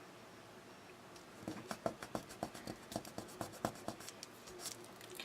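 Paper pieces being handled and pressed down on a work surface: a run of quick light clicks and scratches, several a second, starting about a second in and dying away near the end.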